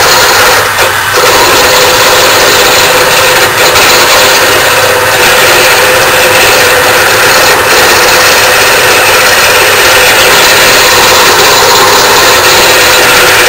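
JET benchtop wood lathe spinning a small wooden ferro rod handle blank while a hand-held turning tool cuts it. The steady machine noise is loud and even.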